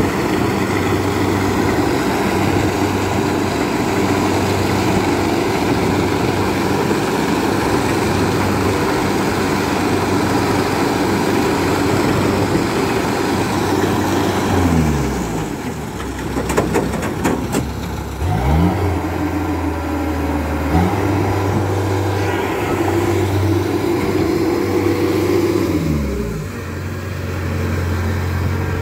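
Kubota DC-68G combine harvester's diesel engine running steadily as the machine churns through water, the reel splashing. About halfway the engine speed drops, a few sharp clicks follow, and it picks back up; it drops and recovers once more near the end.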